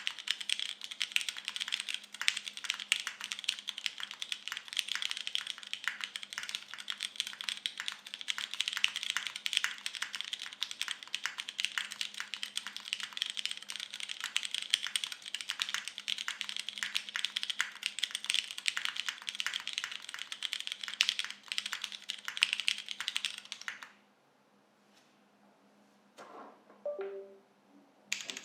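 Fast, continuous typing on a TGR Jane V2 CE mechanical keyboard: lubed Cherry MX Brown switches with 60 g springs, DCS keycaps and a carbon fibre plate give a dense, steady clatter of keystrokes. The typing stops about 24 seconds in, leaving a near-silent pause broken by a few faint clicks, and starts again at the very end.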